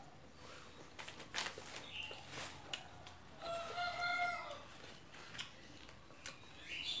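A rooster crowing in the background, one long held call about three and a half seconds in, over scattered soft clicks and smacks of someone eating with their fingers.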